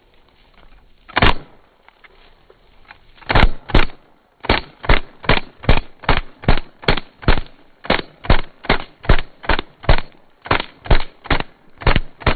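Azodin Blitz 3 paintball marker, on a 3,000 PSI air tank, firing full-auto: a single shot about a second in, two more around three and a half seconds, then a steady string of sharp pops at about two and a half a second from about four and a half seconds on.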